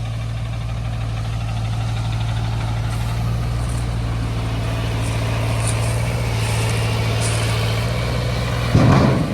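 Heavy truck's diesel engine idling steadily, a constant low hum. A louder, irregular burst of sound breaks in near the end.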